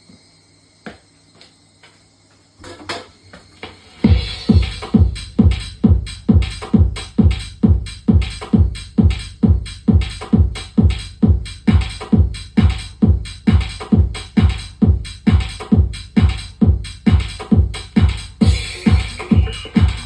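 Electronic dance music from a DJ mix: a quiet intro with a few scattered clicks and hits, then about four seconds in a steady four-on-the-floor kick drum comes in at about two beats a second.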